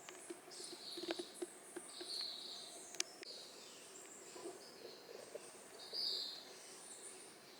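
Faint countryside ambience: short high chirps every second or two over a steady hiss, with a few sharp clicks about one and three seconds in.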